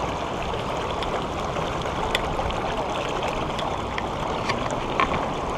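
Steady rushing of a shallow river's current over rippled water, with a few faint ticks here and there.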